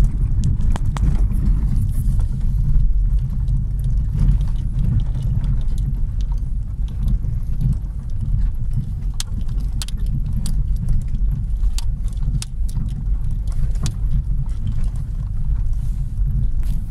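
Car driving on a gravel road, heard from inside the cabin: a steady low rumble of engine and tyres, with many scattered sharp clicks and rattles as it jolts over the stones.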